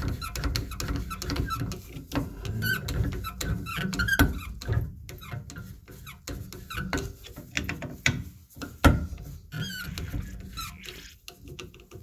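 Squeaking and scraping of a chisel blade, ground into a wide screwdriver, as it twists the stiff brass balancing spool of a Moen Moentrol shower valve loose, with many small clicks and handling knocks.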